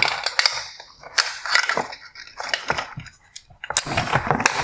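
Hard plastic headlight parts clicking, scraping and rattling as they are handled: the bulbs are unplugged from the high-beam reflector and the reflector is worked loose from the housing. The sound comes in several bursts of clatter, the loudest near the end.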